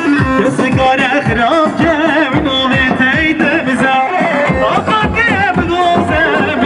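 Live, amplified Kurdish folk dance music from a band: a steady drum beat under a wavering, ornamented melody line, played for line dancing.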